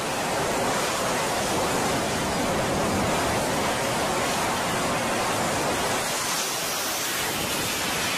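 F/A-18 Hornet's twin jet engines at full power for a carrier catapult launch: a loud, steady rushing noise that holds level throughout.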